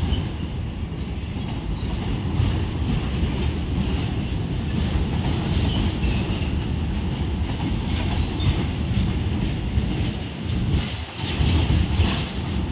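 Covered car-carrier freight wagons rolling past on the track: a steady rumble of steel wheels on rails, with clacks as wheels cross rail joints, more of them in the second half.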